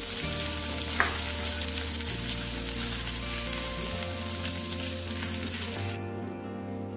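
Ghee tempering sizzling in a nonstick pan as cashews go in and are stirred, with a light tap about a second in. The sizzle cuts off suddenly about six seconds in.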